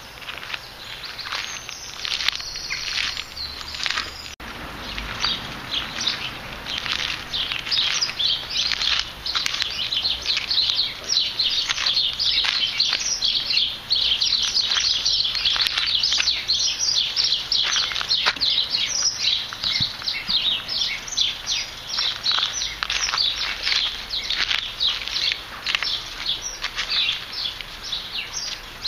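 Small birds chirping, many quick high chirps overlapping almost without pause; they are sparser for the first few seconds, then thicken.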